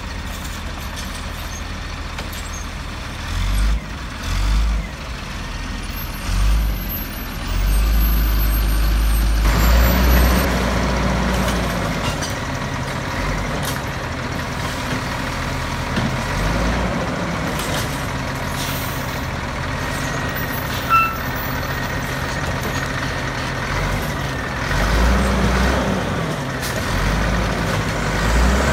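Volvo WX42 garbage truck with a Mini Rapid Rail automated side-loader running, its engine revving up and down several times as the hydraulic arm works carts. There is a short sharp clack about two-thirds of the way through.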